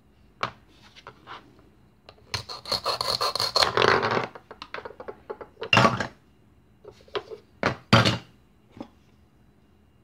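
The velcro join of a plastic toy carrot tearing apart with a rasping rip lasting about two seconds, after a few small plastic clicks. It is followed by several sharp clacks of the hard plastic pieces knocking on a plastic toy cutting board.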